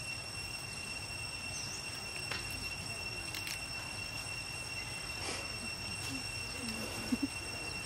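Steady high-pitched insect drone over a low outdoor rumble, with a few faint short squeaks and two brief blips about seven seconds in.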